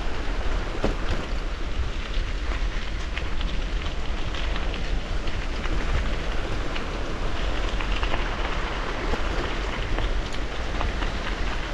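Bicycle tyres rolling downhill over loose gravel and rock: a steady crunching rattle with many small clicks, over a low rumble of wind on the microphone.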